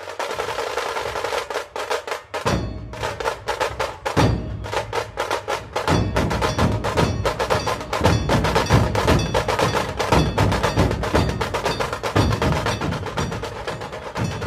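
Dhol-tasha ensemble playing: rapid, dense tasha strikes with deep barrel-drum dhol beats that come in about two seconds in and fill out from about four seconds on.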